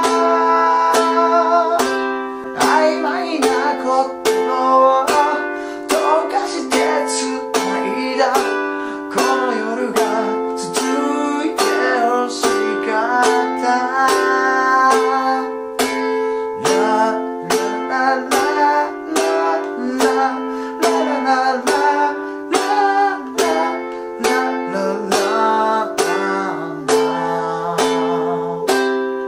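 A man singing in Japanese while strumming chords on a G-Labo custom ukulele, a simple beginner's pattern through F, G7, Am and C, with the strums falling in a steady rhythm.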